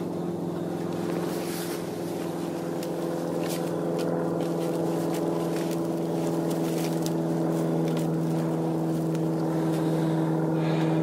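Steady drone of distant road traffic: a low engine hum with overtones that grows slightly louder toward the end, with a few faint clicks over it.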